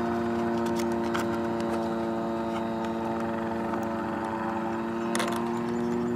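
Steady machine hum at one unchanging pitch, with a few faint clicks from a screwdriver working at the model airplane's engine.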